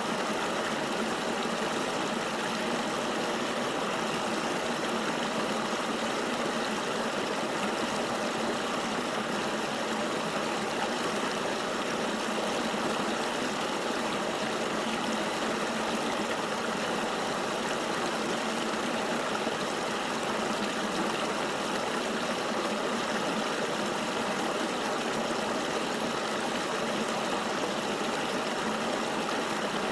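River water flowing, a steady, even rush with no single splashes or changes standing out.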